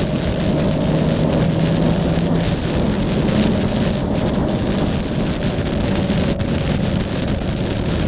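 Yamaha Tracer motorcycle riding along at a steady pace, its engine running at an even pitch under heavy wind rush on the camera microphone; the engine note shifts slightly about two and a half seconds in.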